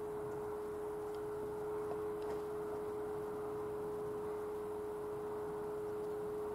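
Level crossing warning sounder giving a continuous electronic tone at one steady pitch, with a weaker second tone just below it, while the barriers are down.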